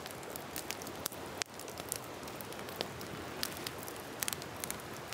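Steady rush of flowing river water with the sharp, irregular crackle and snap of a wood campfire.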